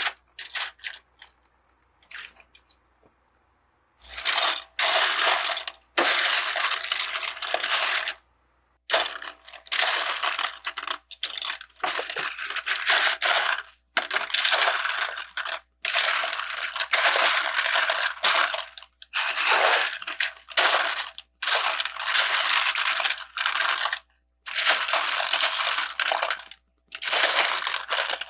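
Loose plastic Lego pieces clattering as a hand rummages through them, in repeated bursts of rattling after a few clicks and a short pause near the start.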